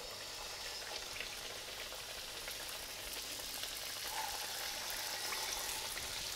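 Pirozhki (potato-filled dough pies) frying in hot oil in a pan: a steady sizzle that grows slightly louder over the few seconds.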